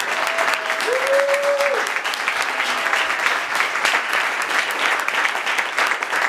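Audience applauding steadily in a room, with a short held call from one voice near the start.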